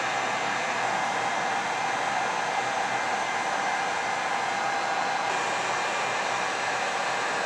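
Heat gun running steadily, a constant rush of blown air with a faint steady whine from its fan.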